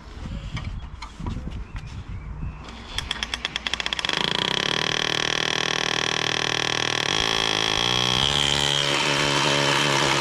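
Power drill running under load: a few light knocks, then about three seconds in the motor starts with a rapid stutter and settles into a loud, steady whine that drops in pitch briefly near the end before carrying on.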